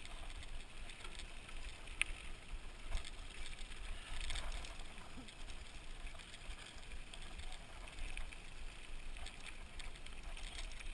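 Mountain bike being ridden on a dirt trail: wind rumbling on the helmet camera's microphone under the light rattle and ticking of the bike, with one sharp click about two seconds in.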